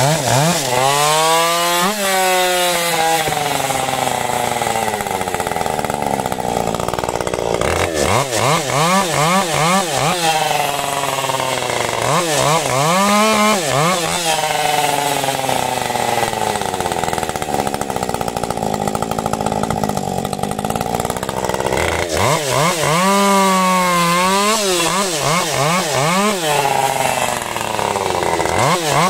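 Ported Husqvarna 550 XP Mark II two-stroke chainsaw cutting firewood. It runs at full throttle with a high, steady pitch between cuts, and the pitch drops and wavers each time the chain bites into the wood. This happens several times over.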